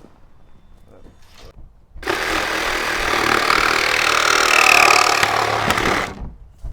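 A power saw making one cut of about four seconds, starting abruptly about two seconds in and stopping abruptly near the end.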